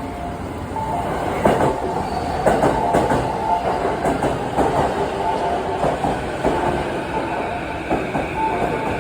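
A train passing, its wheels clicking over the rail joints, with a repeating two-tone electronic signal sounding over the rumble.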